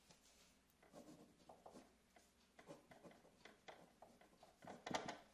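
Cello Signature Carbon ballpoint pen writing on a paper card: a run of faint, short scratching strokes as the tip moves over the paper, with a louder scrape near the end.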